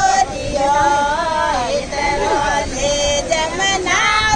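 Women singing a Marwari devotional bhajan to Krishna, holding long, wavering melodic notes.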